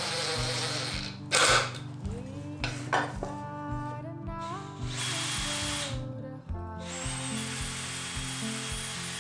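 Cordless DeWalt driver running in short bursts, driving screws into 2x4 lumber, with a motor whine in the longer bursts near the end.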